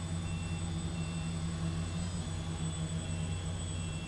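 Quadcopter motors and propellers humming steadily at a constant pitch, heard through the FPV link with hiss. A faint high tone pulses about every two-thirds of a second.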